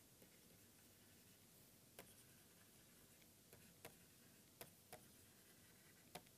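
Faint, scattered light ticks of a stylus tip tapping a tablet screen while writing, over near silence. About seven irregular clicks.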